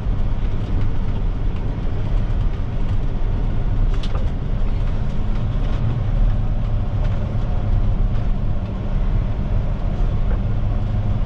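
A heavy dump truck's diesel engine running steadily, heard from inside the cab over road and tyre rumble. The truck is loaded with about 18 tons of gravel and is easing slowly down a winding grade.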